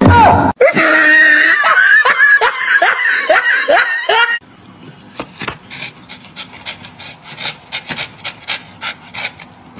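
A puppy yapping in a quick run of short high yips for about four seconds. It stops suddenly, and a dog's rapid, even panting follows.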